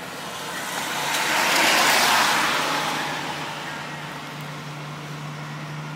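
A road vehicle passing by: a wash of noise swells to a peak about two seconds in and fades away. A steady low hum comes in about halfway through.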